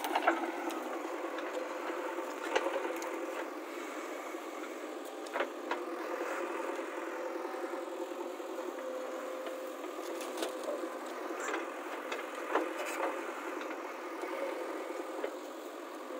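JCB 3DX backhoe loader's diesel engine running steadily under load as the backhoe digs soil, with a few short sharp knocks scattered through it.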